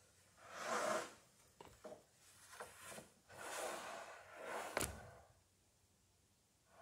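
Long wooden planks being shifted and slid against each other on a rack: a few scraping swells with light knocks, then one sharp knock about five seconds in.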